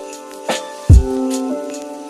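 Background music: sustained keyboard chords over a steady drum beat, with a deep kick drum about a second in and sharp snare hits.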